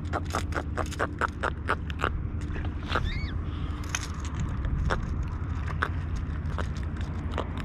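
Wind rumbling on the microphone while a small fish and fishing tackle are handled during unhooking. A quick run of sharp clicks comes in the first two seconds, followed by scattered clicks and a short whistle-like glide about three seconds in.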